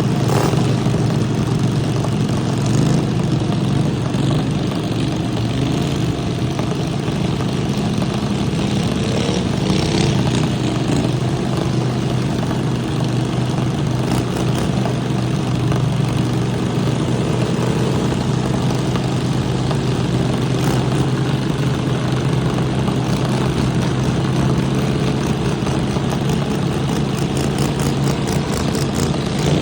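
Riding lawn mower engines running steadily, with a few short knocks, one of them about ten seconds in.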